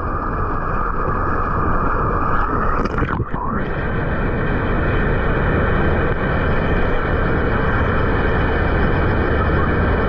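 Rushing, churning water of an indoor wild-water river ride, heard from a rider carried along in the current: a loud, steady wash of turbulent water, broken briefly about three seconds in.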